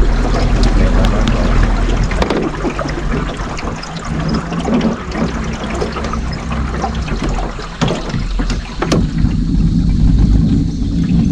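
Electric trolling motor humming steadily as the small boat moves, under a wash of water and wind noise with scattered small clicks and a few sharp knocks, the sharpest about nine seconds in.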